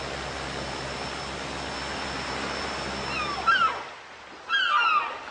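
Turboprop airliner flying low overhead: a steady rushing noise with a low hum and a thin high whine, which cuts off near the end. Then come short falling whistle-like cries in two loud bursts.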